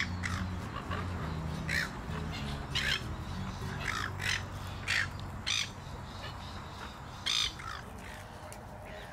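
A flock of silver gulls calling, with about seven short calls spread over the few seconds, several close together in the middle.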